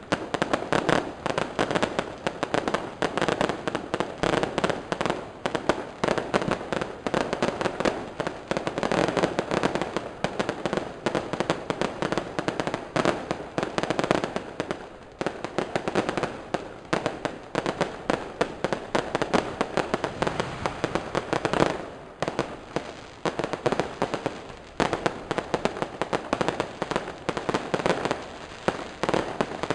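Fireworks going off in a dense, continuous crackle of rapid bangs, easing briefly about halfway through and again about two-thirds through.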